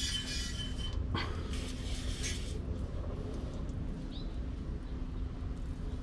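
Aerosol can of PB Blaster penetrating oil sprayed onto a rust-seized spare-tire carrier bracket: two hissing bursts of about a second each in the first few seconds.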